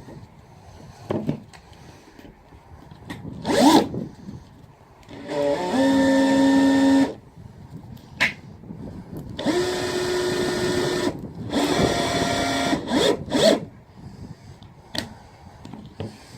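Power drill/driver run in several short bursts, each winding up quickly in pitch and then holding steady for a second or two, as it drives screws into the wooden floor planks of a van; a few sharp clicks and knocks between the bursts.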